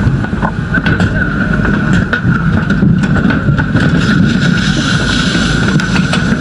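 Engine-driven machine running steadily close by: a low rumble with a constant high whine over it, and scattered light knocks.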